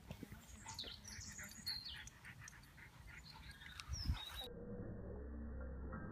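Faint high squeaks and whines from a miniature schnauzer, with scattered small clicks. About four and a half seconds in, the sound turns to a dull, muffled low rumble with nothing high in it: audio slowed down along with 240 fps slow-motion footage.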